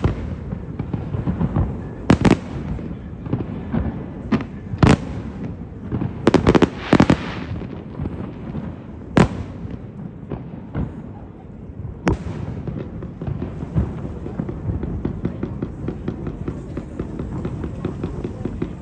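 Aerial fireworks exploding: loud sharp bangs every couple of seconds, with a quick run of several bangs about six to seven seconds in. Over a steady low rumble, with dense fast crackling in the last few seconds.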